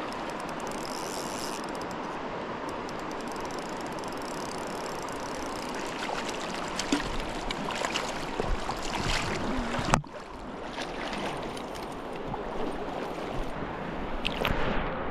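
River current rushing steadily over riffles. In the second half come scattered short clicks and splashy ticks, with one sharp knock about ten seconds in.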